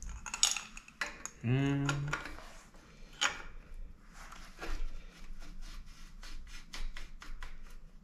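Metal clinks and light ticks of a greased quill stem being handled and slid down into the steel steerer of a threaded headset, with a sharper clink a little after three seconds and a run of small quick ticks near the end. A short hummed voice sound comes about a second and a half in.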